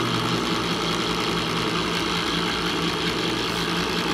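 Hamilton Beach electric can opener running with a steady low motor hum as it turns a can and cuts around its lid.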